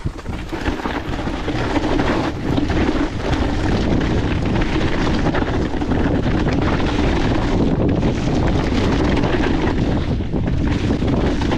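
Wind rushing over an action camera's microphone as an e-mountain bike rolls fast down a rough dirt trail, with steady tyre noise and the bike rattling over the rocky ground.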